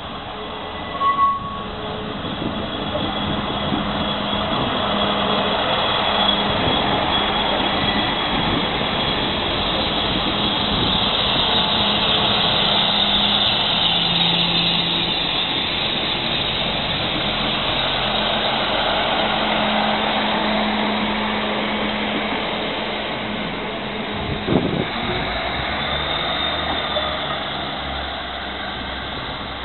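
Class 159 diesel multiple unit passing at speed: the note of its underfloor diesel engines and the rumble of its wheels on the rails build up as it comes in, are loudest as it goes by close about halfway through, then ease off as it runs away. A brief high tone sounds about a second in, and there is a single sharp knock near the end.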